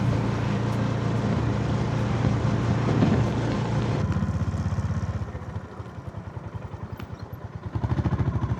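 Honda GB350's single-cylinder engine running on the road. About five seconds in, the engine noise drops to a slow, even pulsing beat, then comes back up near the end.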